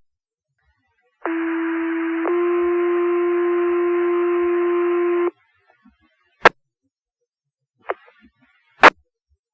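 Two-tone sequential page tones on a fire-dispatch radio channel, setting off the station's pagers for the second page. A lower tone lasts about a second, then steps up to a slightly higher tone held for about three seconds, over radio hiss. A few sharp clicks come on the channel afterwards.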